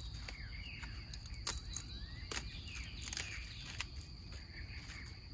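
Quiet garden ambience: birds chirp faintly against a steady high tone and a low rumble. A few short, sharp clicks come from mustard green leaves being handled at the washing bowl.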